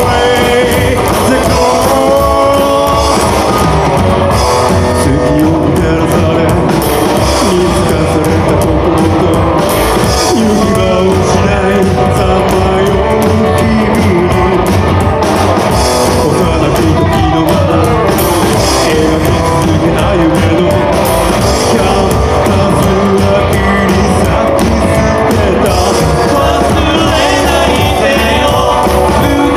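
Rockabilly band playing live: a singer over electric guitar and a steady beat.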